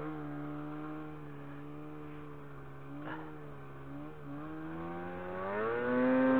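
Snowmobile engine running at a steady speed, then revving up and getting louder near the end.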